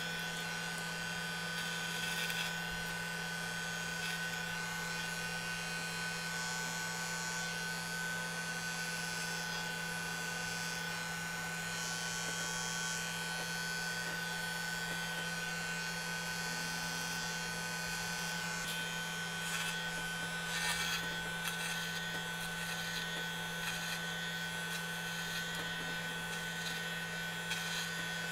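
Corded electric hair clippers buzzing steadily as they are run over the scalp, cutting hair down short.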